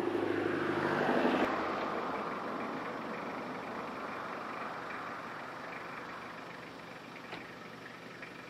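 A motor vehicle going by on the road: its engine and tyre noise swells to a peak about a second in, then fades slowly as it moves away. A steady engine hum cuts off suddenly about a second and a half in.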